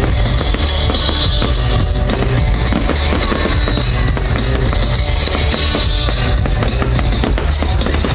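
Loud rock music with a heavy drum beat and guitar, played over an outdoor display's sound system and picked up from among the crowd.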